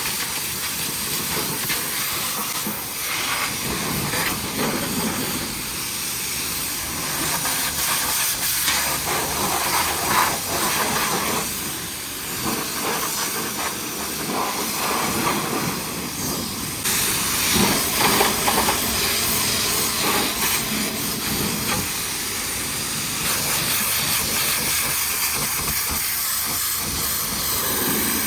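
Pressure-washer lance spraying a high-pressure jet of water onto the truck's body, a steady hiss that changes a little in tone as the spray moves across different surfaces.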